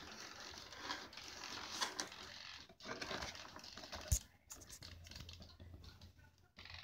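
Faint scattered clicks and light handling noise, a few separate ticks over a few seconds.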